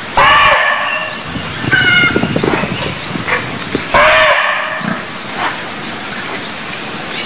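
Barking deer (muntjac) giving two loud, harsh barks, each short and about four seconds apart, over a faint high chirp that repeats about every half second.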